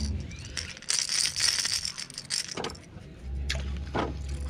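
A topwater lure and baitcasting rig being handled, with small clicks and rattles. About a second in comes a cast: the baitcasting reel's spool whirs for about a second and a half as line pays out. A low rumble follows near the end.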